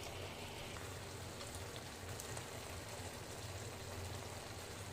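Thickened tomato sauce simmering in a pan: a faint, steady crackle and bubbling over a low hum.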